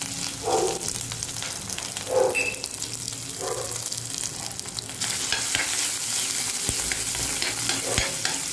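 Ginger-garlic paste frying in hot oil in an aluminium pan, sizzling steadily while a spoon stirs it, with a few short scrapes in the first few seconds. About five seconds in the sizzle gets louder and crackles as the paste spatters.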